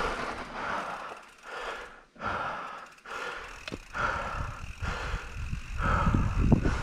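A mountain biker's heavy breathing, a quick hissing breath about once a second, over the low rumble of tyres and wind on the microphone.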